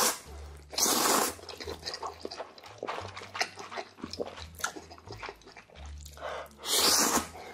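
A man slurping mouthfuls of instant ramyeon noodles in loud hissing pulls, twice near the start and once near the end, with wet chewing and smacking between them.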